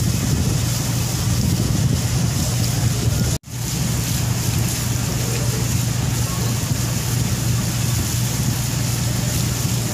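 Steady low drone of a wooden river taxi boat's engine running under way, with a rush of wind and water over it. The sound cuts out for an instant about a third of the way in, then carries on unchanged.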